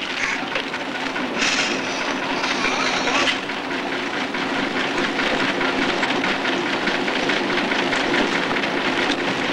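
Old diesel coach's engine running at a standstill with a steady hum and a fast rattling clatter. A hiss starts about one and a half seconds in and lasts about two seconds.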